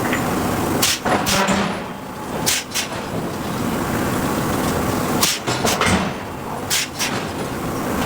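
Hydraulic forging hammer striking steel: a series of sharp blows in two groups, starting about a second in and again about five seconds in, over a steady background machinery hum.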